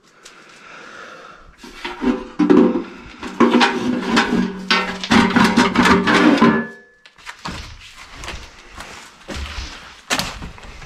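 Sheet-metal cover of a wall-mounted terminal box being handled, scraping and rattling with a steady metallic ringing for several seconds. After that come a few scattered knocks and thuds.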